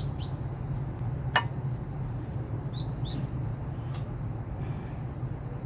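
Small birds chirping in quick short calls, most around three seconds in, over a steady low hum. A single sharp click about a second and a half in.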